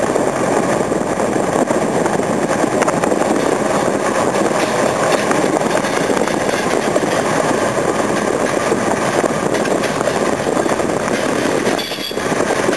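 Steady rushing wind and road noise from a moving car with its window open, with a freight train of tank wagons running alongside.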